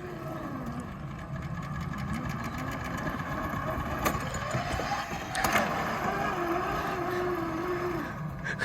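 An engine running with its speed wavering slowly up and down, growing louder, with a few sharp clicks.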